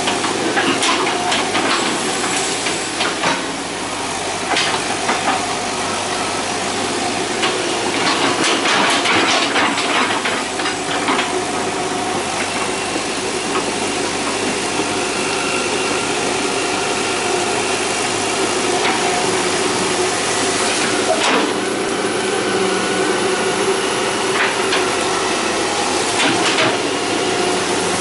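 Hitachi EX120 hydraulic excavator's diesel engine running under load, with repeated knocks and scraping as its steel bucket digs and pushes soil. The knocks are thick in the first half, with a few more later, and a steady high whine comes in about halfway through.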